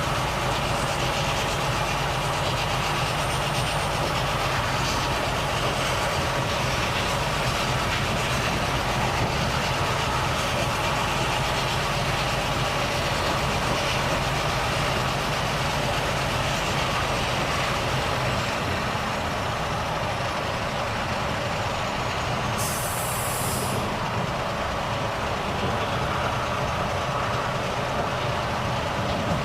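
Volvo FH truck's diesel engine running steadily under way, with road noise. A short hiss of air, about a second long, comes about three quarters of the way through.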